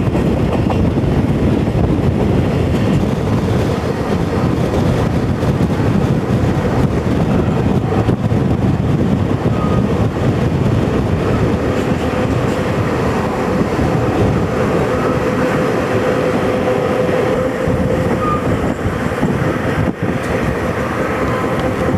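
Amtrak Desert Wind passenger train running, heard from an open vestibule: a steady rumble of wheels on rail mixed with rushing air. A faint steady high tone joins in over the second half.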